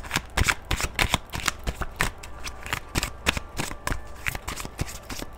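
A deck of oracle cards being shuffled by hand: a quick, irregular run of soft card clicks and flaps.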